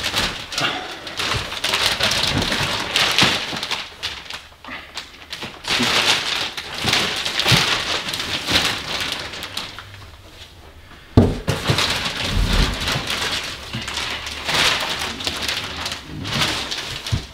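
Clear plastic bags around goose decoys crinkling and rustling in uneven bursts as the bagged decoys are handled and set down. A single sharp knock comes about eleven seconds in.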